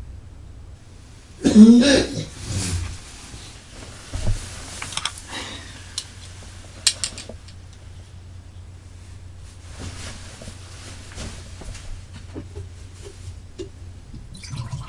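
A man's heavy, harsh cough about a second and a half in, the loudest sound, followed by fainter coughs or throat sounds and a few small clicks. It is the cough of a heavy drinker and smoker.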